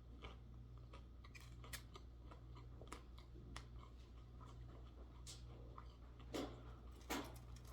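Faint close-up chewing of fried chicken and fries: scattered small mouth clicks and soft crunches, with two louder chews near the end, over a low steady hum.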